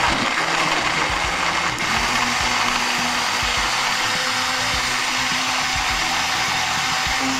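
Countertop blender running steadily, blending a green juice of kale, cucumber, mint, tangerine and coconut water, with a steady motor hum under the churning of the liquid.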